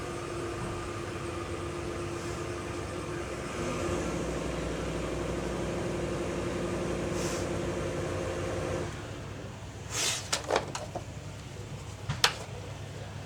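A steady machine hum with a few held tones that stops about nine seconds in, followed by a handful of sharp clicks and rustles.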